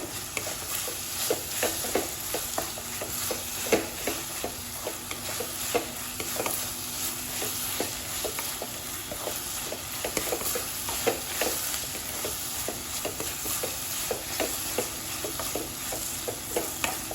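A spoon stirring and scraping a thick tomato-onion mixture in a kadai, with repeated irregular scrapes over a steady frying sizzle. The mixture, with chilli powder and asafoetida, is being sautéed until the raw spice smell goes.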